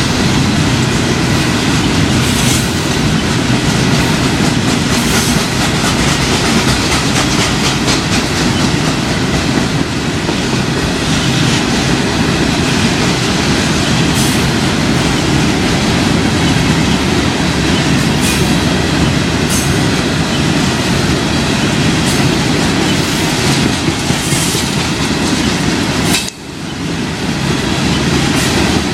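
CSX freight train's cars rolling past close by: a loud, steady rumble of wheels on rail with clickety-clack from the wheels over the joints. The sound briefly drops away near the end, then comes straight back.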